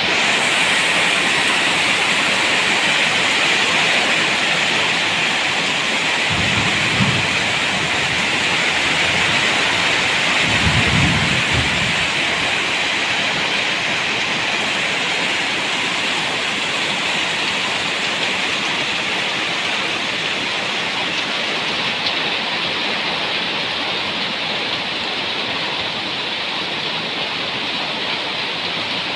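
Steady heavy rain, with two short low rumbles of thunder, one about six seconds in and one about ten seconds in.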